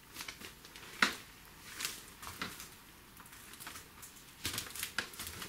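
A few faint, scattered clicks and rustles, a sharper one about a second in and a small cluster near the end.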